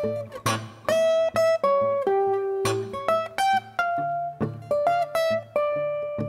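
Acoustic guitar fingerpicked solo: a melody of single plucked notes over a bass line, with a few notes sliding up in pitch and two brighter, fuller chords about half a second and nearly three seconds in.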